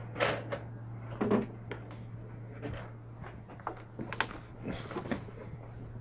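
Irregular knocks and rattles of a cutting board with a motherboard zip-tied to it being handled and set into a wire shelving rack, the loudest knocks about a quarter second and just over a second in.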